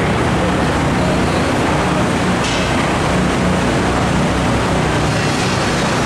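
Steady low engine drone under a dense, even background din.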